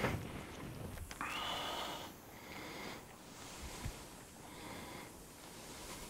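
A man's breathing close to a lapel microphone, breath after breath about once a second, with a brief whistling tone through one breath a little over a second in. He is hot and sweating from the work.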